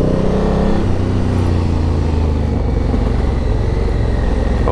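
Honda DCT adventure motorcycle's parallel-twin engine under way: the revs climb, drop with an upshift about a second in, then hold steady.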